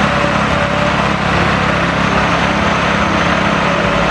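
Heavy engine running steadily at a constant speed, the sound of a bulldozer, with a fast, even pulse under a dense rumble.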